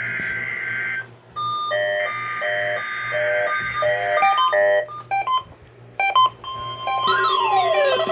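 Weather radio receiving a Required Weekly Test. First comes the end of a burst of the digital alert header, a harsh buzzing two-tone data sound. Then a string of electronic beeping notes plays over another header burst, with scattered beeps, and from about seven seconds a warbling electronic alert of rising and falling tones.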